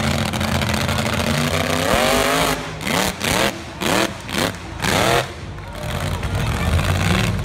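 Monster truck engine running, then revved in a quick series of throttle blips, each rising in pitch, from about two to five seconds in, before settling back to a steady run.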